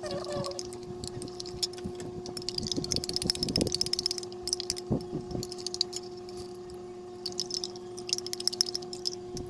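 Light clinks and taps of glass and kitchen utensils being handled, busiest around three and eight seconds in, with a couple of duller knocks, over a steady electrical hum.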